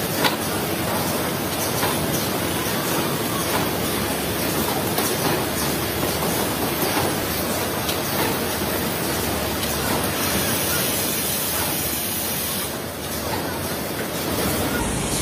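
Matchbox filling and packing machinery running, a steady mechanical din with scattered light clicks and a sharper click just after the start.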